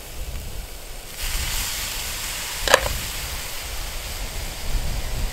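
Garlic and crab sizzling in a hot pan, the hiss rising about a second in as lime juice goes in, with one sharp click about halfway through and a low rumble underneath.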